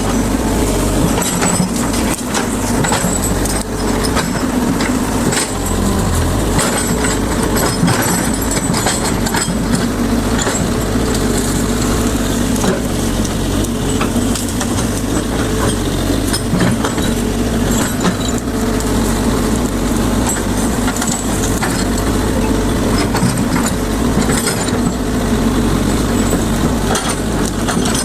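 Excavator's diesel engine running steadily under load, with scattered snapping and crackling of branches and brush as the machine tears out and crushes vegetation.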